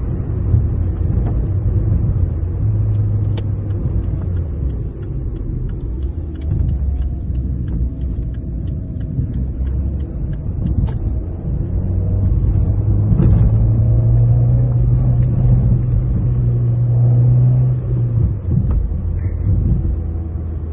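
Peugeot 206 1.1's four-cylinder petrol engine running on the move, with scattered light clicks. It grows louder about two-thirds of the way through as it pulls harder, then eases off near the end.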